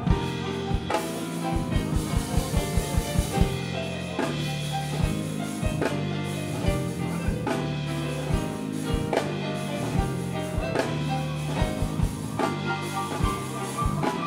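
Live instrumental band music: a drum kit plays a rapid flurry of strokes about one to three and a half seconds in, then keeps a busy beat with cymbals, over held electric bass notes and grand piano chords.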